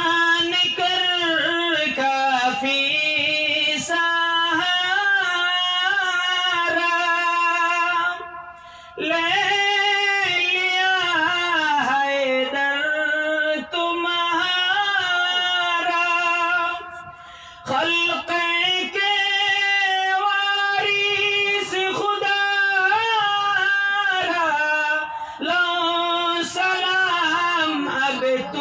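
A man singing a devotional salam to the Prophet Muhammad into a microphone, amplified through a PA, in long held, ornamented lines with two short breaks for breath about 8 and 17 seconds in.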